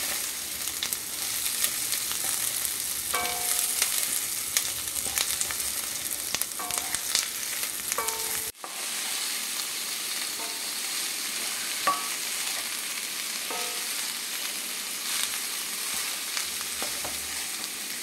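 Onion, curry leaves, green and dried red chillies and mustard seeds sizzling in coconut oil in a kadai as they are stirred and sautéed. After a brief cut-out about halfway, chopped amarakkaya (flat beans) sizzle as they are stirred in the hot pan.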